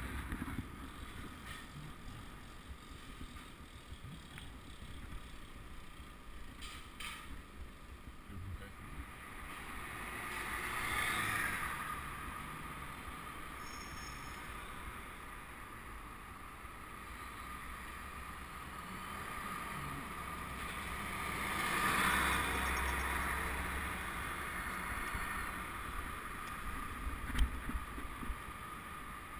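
Riding a road bike on a town street with a helmet camera: steady wind and tyre rumble, the road noise swelling twice, about ten seconds in and again a little past twenty seconds.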